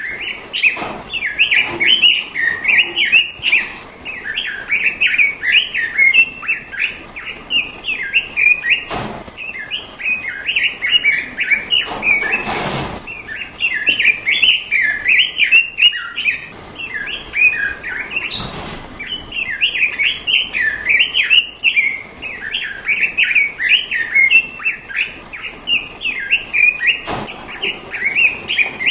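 Songbirds chirping and warbling continuously in quick runs of high notes, with a few brief bursts of hiss and clicks.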